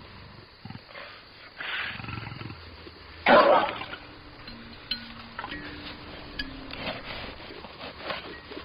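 A large wild animal roaring twice: a shorter call about two seconds in and a louder one just past three seconds, over faint steady background tones.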